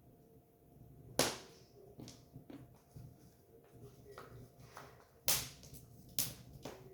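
Firewood burning and crackling, with three loud sharp pops (about a second in, then twice near the end) among softer snaps over a low background rumble.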